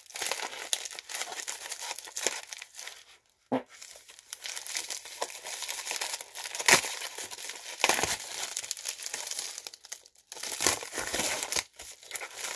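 Packaging being unwrapped by hand: a padded mailer and the wrapping inside it crinkling and crackling, with a loud sharp tear about halfway through and two brief pauses.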